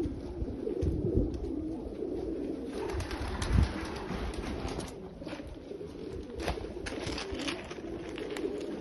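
Racing pigeons cooing continuously in a loft, with scattered rustles and a couple of dull thumps, the loudest about three and a half seconds in.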